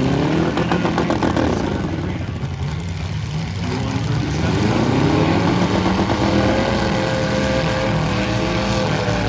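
Several demolition derby cars' engines running hard at once, revs climbing and dropping twice, then one engine held at high revs near the end.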